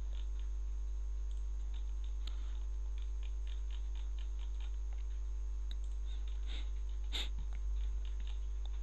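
Steady low electrical hum on the recording, with faint, scattered computer mouse clicks as parts are picked on screen; one sharper click comes about seven seconds in.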